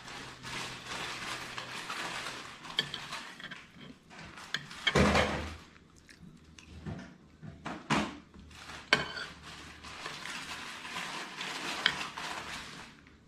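Metal spoon scraping and clinking against a plate while eating, with one louder knock about five seconds in and a couple of sharp clicks a few seconds later. A steady hiss runs under the first few seconds and again near the end.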